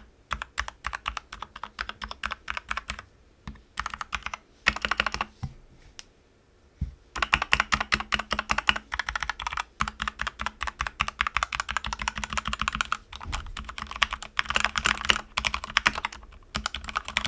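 Typing on a Keychron K2 mechanical keyboard whose switches have been freshly lubed with Krytox (205 on the switches, 105 on the springs): a steady stream of key clacks. The typing stops for about a second and a half around five seconds in, then resumes faster and denser.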